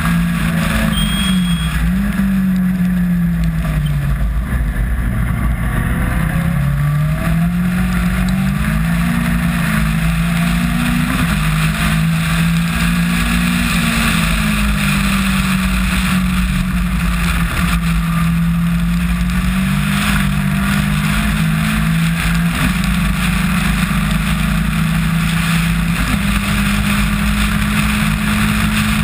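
Caterham R300 Superlight's Ford Duratec four-cylinder engine at race pace, heard onboard the open car. The revs climb and drop again and again through gear changes and corners, over a steady rush of wind and spray noise.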